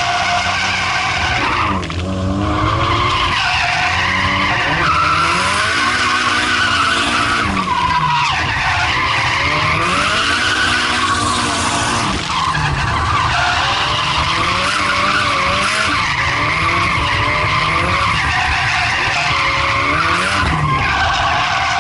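Nissan Silvia S13's turbocharged SR20 four-cylinder engine revving hard with continuous tyre squeal as the car drifts in a figure eight, heard from inside the cabin. The engine note dips and climbs again about every four seconds as the car changes direction.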